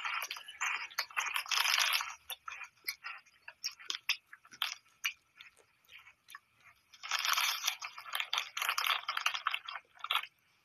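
A person crunching and chewing Funyuns onion-flavoured corn rings. There are two spells of dense crunching, one at the start and one about seven seconds in, with scattered single crunches between them.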